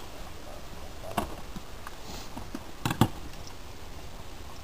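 Bolt of a PGM Hecate II .50 calibre sniper rifle being worked by hand: a light click about a second in, then two sharp metallic clacks in quick succession about three seconds in.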